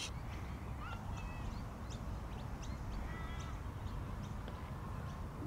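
Outdoor ambience: birds chirping and calling in short high notes, including a quick trill about three seconds in, over a steady low rumble.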